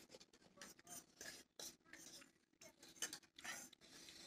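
Faint, scattered clicks and scrapes of forks against plates as noodles are eaten off them.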